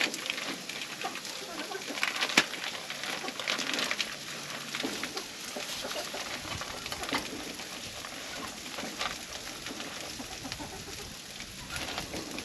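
Steak sizzling in a pan on a grill, with many sharp pops and clicks, and chickens clucking.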